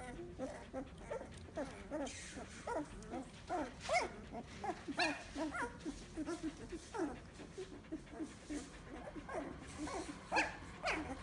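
Young Samoyed puppies, about two weeks old, whimpering and yipping in a rapid string of short, high, squeaky calls, several a second, many sliding in pitch.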